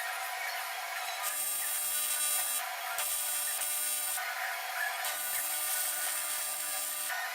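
Welding arc on an aluminum part, struck three times in short runs of one to two seconds each. Each run adds a high hiss and buzz over the steady hum of the welding machine.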